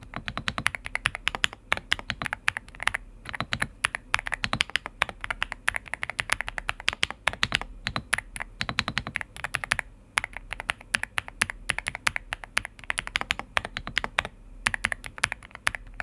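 Fast, continuous typing on a Xinmeng M87 TKL mechanical keyboard with Black Plum linear switches and PBT double-shot keycaps, a dense run of keystrokes with the thocky, non-clicky sound of a linear board, pausing briefly a few times.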